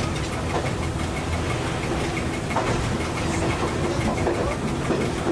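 Diesel engine of a MAN railcar running steadily, heard from inside the driver's cab, with wheel-on-rail noise and scattered clicks as it travels along metre-gauge track.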